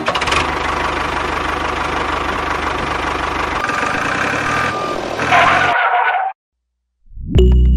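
A small engine running with a fast, even knocking pulse. It cuts off abruptly about six seconds in, leaving a short gap of silence, and music comes in near the end.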